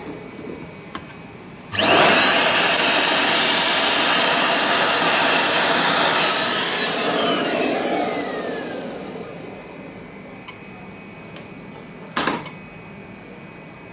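Small vacuum cleaner switched on about two seconds in, running loudly for a few seconds to clear grinding dust from the chip, then switched off and winding down with a falling whine. A brief noise follows near the end.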